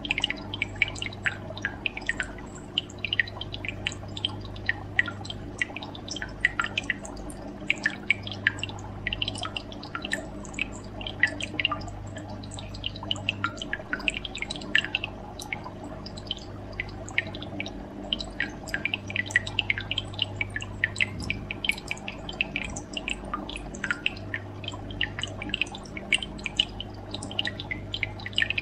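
Aquarium water bubbling and dripping in many quick, irregular drops over a steady low hum that drops out now and then.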